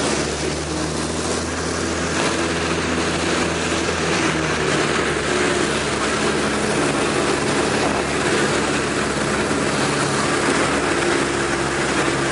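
Piper Cherokee's engine and propeller running steadily, heard from inside the cabin, on approach to landing. The engine note shifts slightly a few times.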